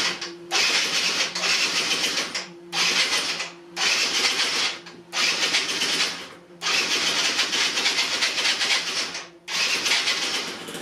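Electric starter cranking the Malaguti Centro's Minarelli two-stroke engine in about seven bursts of one to three seconds with short pauses, the engine not catching. The carburettor is still empty of fuel.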